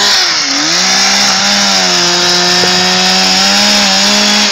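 Two-stroke chainsaw running at high speed. Its pitch dips briefly about half a second in, then holds steady.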